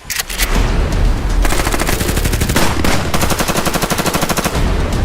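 Automatic gunfire: long, rapid bursts of many shots a second over a deep rumble, with a short gap near the middle.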